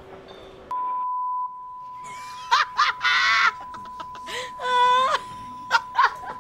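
A steady, high electronic beep tone starts about a second in, loud at first and then quieter, and holds on. Over it come loud shrill voices screaming or shrieking, twice, then a couple of sharp clicks near the end.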